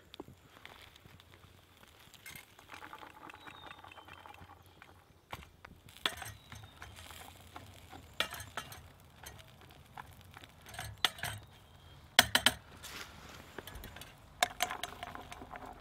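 Wooden stir stick scraping and knocking in a metal fry pan over coals, with a handful of sharp metallic clinks from the pan and its wire handle, the loudest about twelve seconds in.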